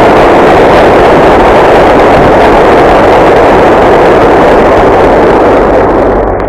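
Audience applauding loudly and steadily, on an old 1950s recording; the clapping dies away near the end.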